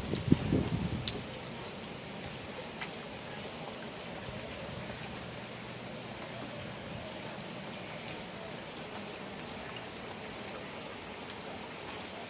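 Steady rain falling, with scattered drops ticking on a surface and a few louder low thumps in the first second.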